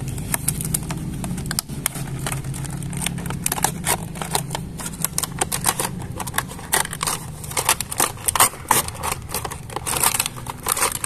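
Cardboard toy-train box being opened by hand: the box sliding out of its sleeve, the lid lifted and the plastic tray handled, giving many small scrapes, rustles and clicks. A low steady hum sits underneath, strongest in the first few seconds.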